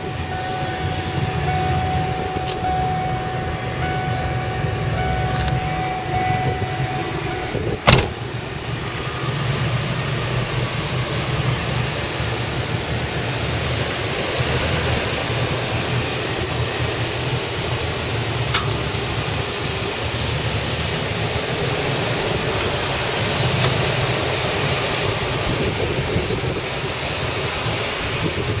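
Ford E150 van's engine idling steadily. A steady high tone sounds for the first seven seconds, and a single loud thud, like a door shutting, comes about eight seconds in.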